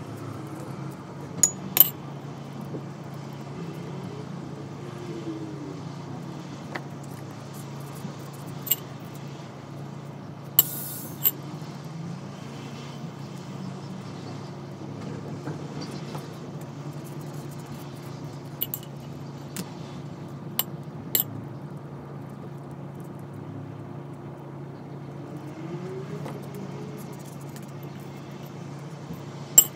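Steady low hum with a dozen or so sharp clicks and clinks scattered through it, from ceramic bowls and plates being handled while momo dumplings are filled and pleated by hand.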